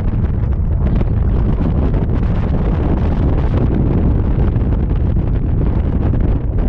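Loud, steady wind buffeting the microphone of a moving Vespa scooter, a dense low rumble that covers any engine sound.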